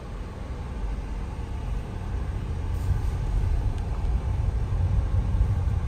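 Car moving at low speed: a steady low rumble of engine and road noise that grows slightly louder.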